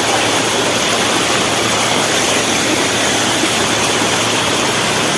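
Steady loud rush of fast floodwater churning and foaming as it pours across a flooded street.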